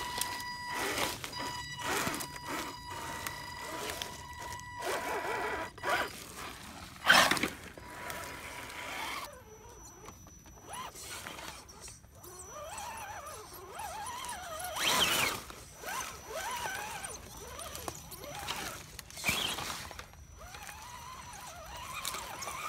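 Axial SCX10 RC crawlers' electric motors and gear drivetrains whining as they climb, the pitch rising and falling with the throttle. Knocks and scrapes of tyres and chassis on rocks, roots and leaves, the loudest about seven seconds in.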